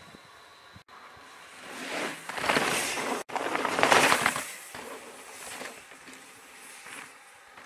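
2018 Trek Slash mountain bike passing close on a dirt and rock trail: tyre crunch and rattle swelling up and fading away, twice, the second pass the loudest about four seconds in.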